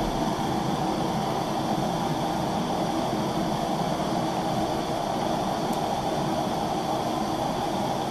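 Two Bernzomatic TS4000 hand torches burning steadily into a small gas-fired melting kiln, a constant, even rush of flame while the kiln preheats.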